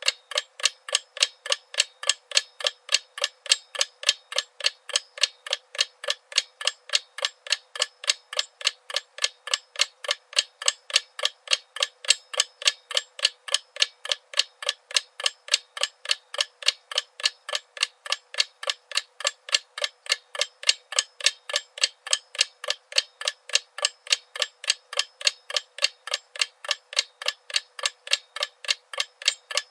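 Clock ticking: a fast, perfectly even run of sharp, thin ticks, alternating louder and softer in a tick-tock pattern.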